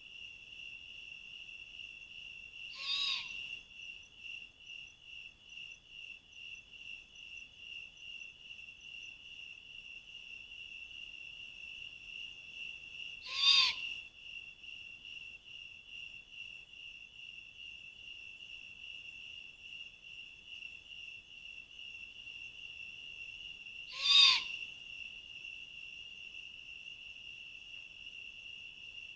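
Three short, loud animal calls about ten seconds apart, each sweeping through a brief arched note over a harsher high part, heard over a steady insect chorus trilling at about three pulses a second.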